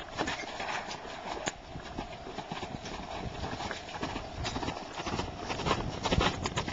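A horse's hoofbeats on sandy footing as it runs around a round pen, a steady run of dull hits that grows louder about six seconds in as the horse passes close.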